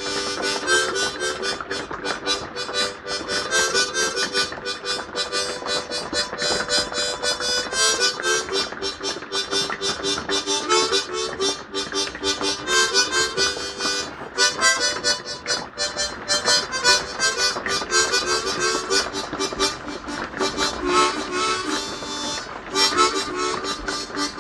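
Harmonica being played, chords in a quick, steady rhythm with changing notes.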